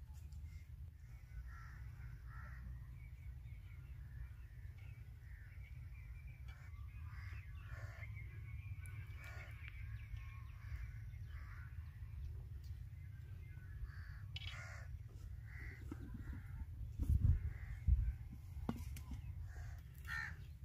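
Birds calling on and off over a low steady rumble, with a few low thumps near the end.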